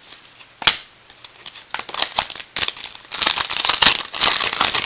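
Baseball-card pack wrapper being torn open and crinkled by hand. There is one sharp crack just under a second in, then dense crackling over the last couple of seconds.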